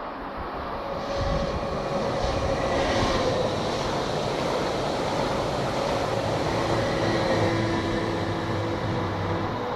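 A train running past on the rails at close range, getting louder over the first two seconds and then holding steady, with a faint steady hum through the rumble.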